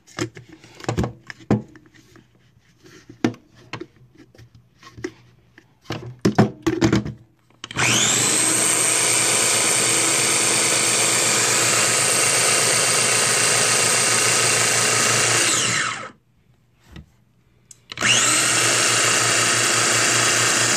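Small electric blender blending aloe vera gel and coconut oil: first a run of clicks and knocks as the lid and motor top are fitted, then the motor runs steadily for about eight seconds and winds down, and after a two-second pause starts again. The motor's whine rises at each start and falls at the stop.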